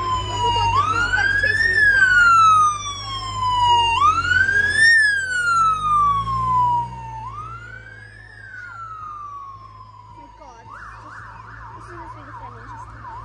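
Police siren wailing in slow rising and falling sweeps, quieter after about seven seconds as the vehicle moves away, then switching to a fast yelp near the end.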